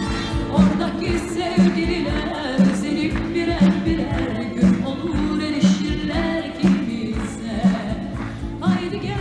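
A woman singing live into a microphone over pop band accompaniment, with a steady beat about once a second.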